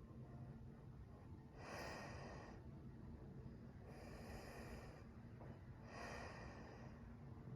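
Faint wind blowing in gusts: a steady low rumble with three brief rushing surges, about two, four and six seconds in.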